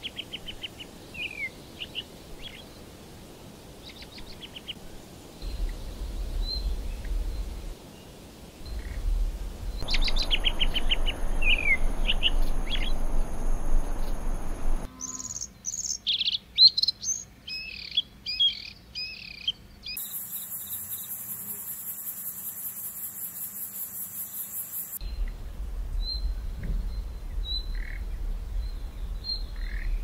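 Small songbirds chirping and singing in a string of short recordings that change every few seconds. From about two-thirds of the way in, a very high, fast, even trill runs for about five seconds.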